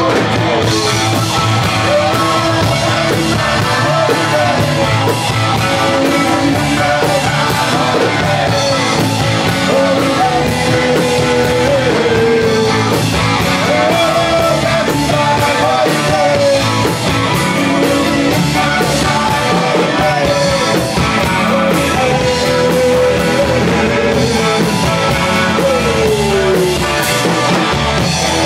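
Live rock band playing with electric guitars, keyboard and drums, loud and steady throughout, over a lead melody that bends and slides in pitch.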